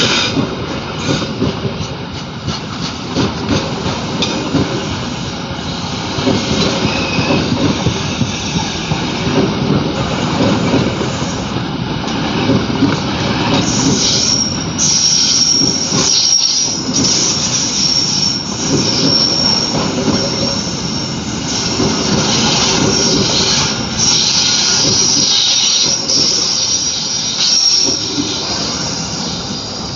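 Train passing close by, its wheels clattering over the rails, with a high-pitched wheel squeal setting in about halfway through and coming and going: the strange wheel sound heard as it passes.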